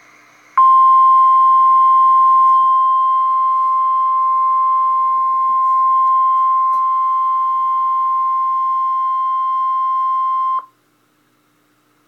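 NOAA Weather Radio's 1050 Hz warning alarm tone, a single steady tone held for about ten seconds and cut off sharply. It is played from an online stream through a laptop's speakers, and it signals that an emergency warning broadcast follows, here a special marine warning.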